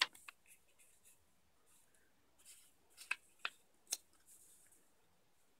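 A sheet of paper being folded and creased by hand along its fold lines: faint rustling, with three short crisp ticks about half a second apart past the middle as the creases are pressed down.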